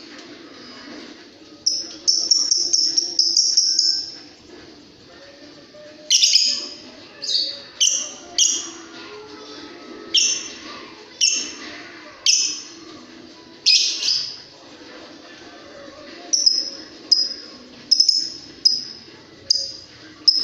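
Pet lovebird giving repeated high-pitched calls: a quick run of chirps early on, then sharper single calls about one a second, and a faster series of short chirps near the end.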